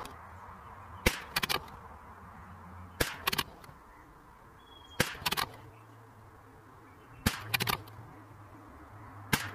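Savage Mark II FV .22LR bolt-action rifle being fired and worked at the bench: five short bursts of sharp cracks and clicks about two seconds apart, the shots and the bolt being cycled between them.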